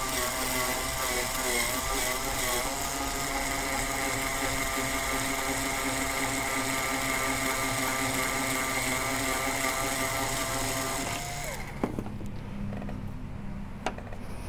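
Power drill spinning the cutter head of a Hornady case trimmer, trimming a 7.62x39 brass case down to 6.5 Grendel length: a steady motor whine whose pitch wavers under load between about one and three seconds in. A little after 11 seconds the drill spins down and stops, followed by a couple of light clicks.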